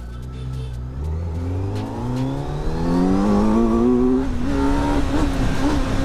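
Kawasaki Z900's inline-four engine under acceleration. Its pitch climbs steadily for about three seconds, then holds high near the end.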